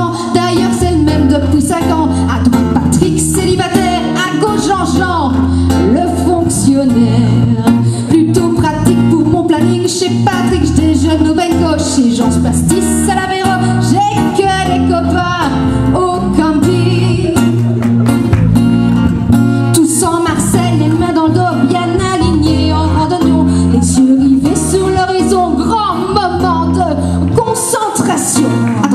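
Live pop song: a woman singing into a microphone over acoustic guitar, electric guitar and bass.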